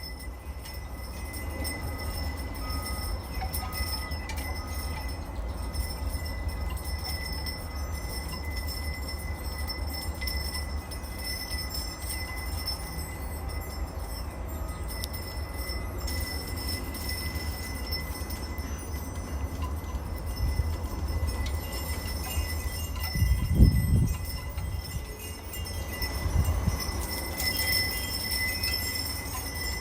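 Wind chimes ringing lightly in a breeze over a steady low wind rumble, with a brief louder low rumble about three quarters of the way through.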